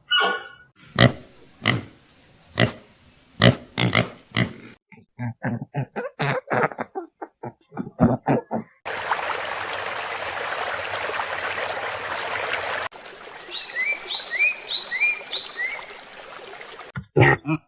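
A string of short animal sound clips: a run of pig grunts, then a steady hiss lasting a few seconds, then four short rising chirps over a fainter hiss.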